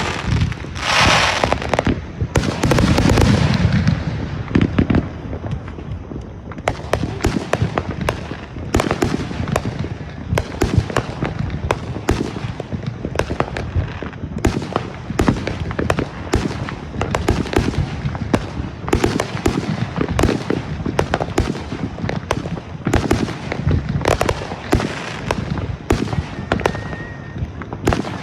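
Consumer fireworks going off in rapid succession: a dense run of sharp bangs and pops, several a second, after a burst of hiss about a second in.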